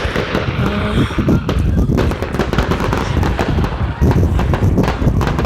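Fireworks display going off in a dense, unbroken barrage of booms and crackles, many reports overlapping.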